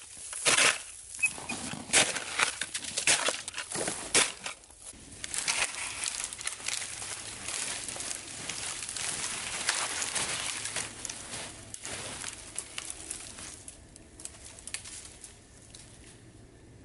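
A plastic snow shovel scraping and scooping snow in quick, sharp strokes for about five seconds. Then dry brush rustles and crackles as a person pushes through it, snapping twigs. The sound fades out near the end.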